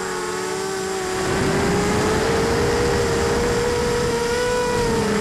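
Tarot 250 quadcopter's electric motors and propellers whining in flight, picked up by the camera mounted on the quad over a rushing noise. About a second in, the whine rises in pitch and grows louder.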